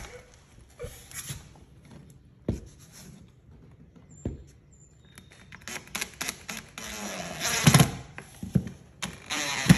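A few light knocks, then from about halfway a run of sharp clicks and a short burst of a DeWalt cordless driver driving a screw in behind the first vinyl plank, loudest shortly before the end.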